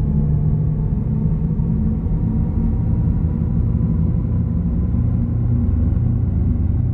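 Audi e-tron GT electric car driving at a steady speed: a continuous low rumble with a steady hum, its pitch hardly changing.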